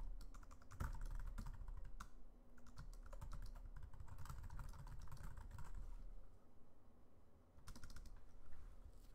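Typing on a computer keyboard: a fast run of key clicks that stops about six seconds in, then a short burst of keystrokes near the end.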